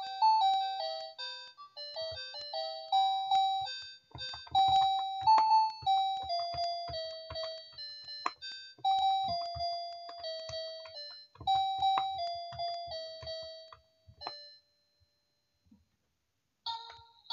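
Happy Little Elephant (Весёлый слонёнок) children's toy piano playing a simple melody of electronic beeping notes through its small speaker as its keys are pressed, with the plastic keys clicking. The tune stops about fourteen seconds in, and near the end a brighter, ringtone-like chime starts.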